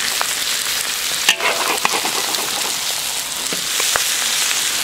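Salted duck eggs sizzling steadily in hot oil in a wok while a metal spatula flips and breaks them up, scraping against the pan, with a sharp clink about a second in.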